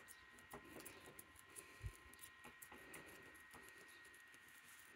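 Small scissors cutting through open-cell air filter foam: faint, irregular snips and clicks of the blades, about two a second, over a faint steady high whine.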